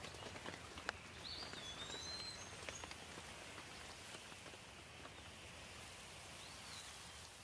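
Light rain: a soft steady hiss with scattered single drops ticking. A bird whistles a short call about a second in and again near the end.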